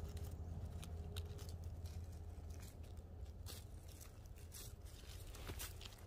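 Dry pine needles and leaf litter rustling, with a scatter of small crackles, as a hand picks black trumpet mushrooms from the forest floor.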